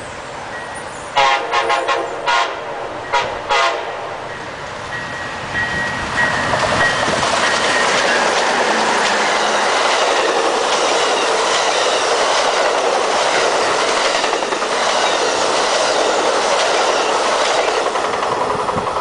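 Amtrak passenger train, led by Siemens Charger diesel locomotives, sounding its horn in several short blasts as it approaches. It then passes close at speed, its locomotives and double-deck Superliner cars making a loud, steady rush of wheel and rail noise that eases near the end.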